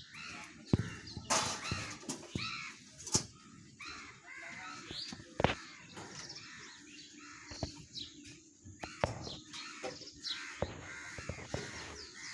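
Alexandrine parakeets calling: a run of many short, harsh squawks and chattering calls, with a few sharp knocks mixed in.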